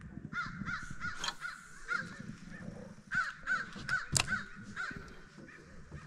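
A bird calling in two quick runs of short, repeated calls, about four a second, with a couple of sharp knocks in between.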